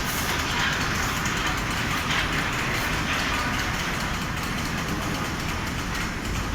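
Large automatic fabric spreader machine running: steady mechanical noise of its carriage and drive, with general factory noise behind it.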